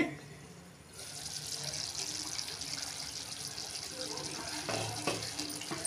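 Ridge gourd curry sizzling in an uncovered kadhai, a steady hiss that comes up about a second in, with light spatula scrapes in the gravy near the end.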